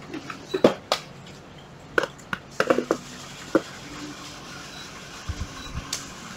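Handling noise from hard plastic and metal tools: a series of separate clicks and knocks as items are picked up and set down, with a couple of dull thumps near the end.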